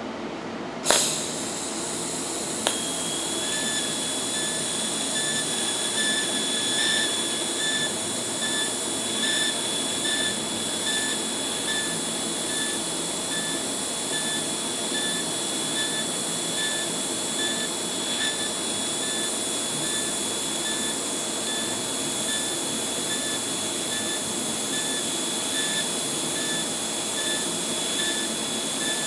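TIG welding arc in pulse mode: a sharp crack as the arc strikes about a second in, then a steady hiss with a thin tone that pulses on and off about once a second, the pulse that sets the timing for each dab of filler rod.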